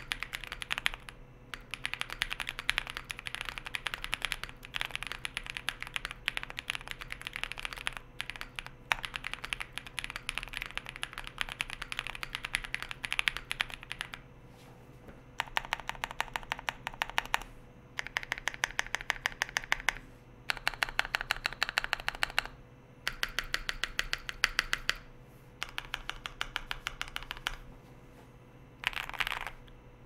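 Typing on a Wuque Studios Mammoth 75 mechanical keyboard: Epsilon switches lubed with 205g0 on a polycarbonate plate, GMK Hennessey keycaps, OwlStabs stabilizers, case and plate foam but no PE foam. Continuous typing for about the first half, then rapid, evenly paced runs of keystrokes a second or two long, with short pauses between them.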